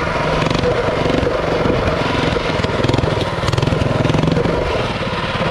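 Minibike's 212cc single-cylinder four-stroke engine running steadily under way through an aftermarket header pipe, heard from the rider's seat.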